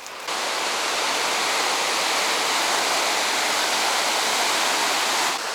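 Fast mountain river rushing over stones, a steady even roar of water that cuts in abruptly just after the start.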